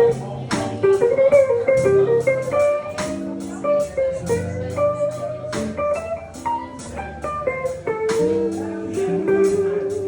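Live blues band playing an instrumental break: an electric guitar plays a lead line of single, bending notes over upright bass and drums.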